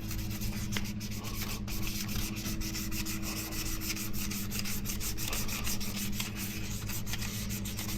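Hand wet-sanding of a scratched polycarbonate dive-camera case with fine sandpaper: continuous light rubbing and scratching strokes, over a steady low hum.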